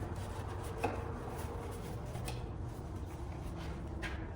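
Cardboard packaging being handled, rubbing and sliding as the outer sleeve comes off the box, with a light tap about a second in, over a low steady hum.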